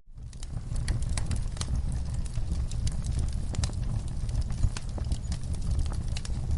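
Campfire burning: irregular crackles and pops over a steady low rumble of the flames. The sound cuts out for an instant at the start and fades back in, like a join in a looped recording.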